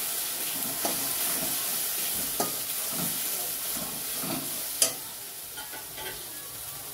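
Spice paste sizzling in a metal kadai on a gas flame as a metal spatula stirs and scrapes it, with scattered clicks of the spatula against the pan. The sharpest clack comes about five seconds in.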